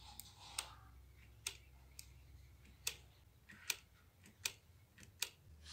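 Sharp plastic clicks from a homemade PVC gearbox and drivetrain model, the strongest coming about every 0.8 s in an even ticking, after a brief rustle at the start.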